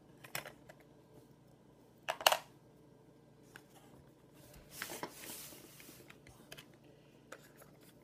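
Small clicks and handling of a laptop RAM module being worked out of its memory slot in a late 2006 MacBook. There are a few light clicks near the start and a sharp double click about two seconds in. A brief scraping rustle follows around five seconds in.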